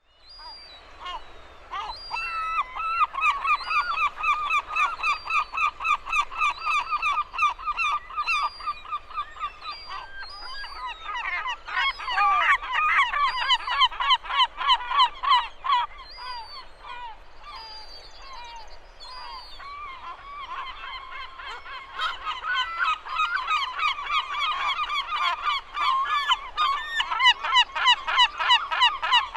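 A flock of seagulls calling over one another in rapid, repeated high cries. The calling swells and eases several times, loudest in the middle and towards the end.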